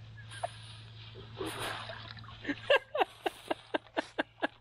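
Water sloshing as a plastic bag is dipped into creek water. Then, about halfway through, a run of short, quick repeated animal call notes starts, about four a second, loud at first and then fading.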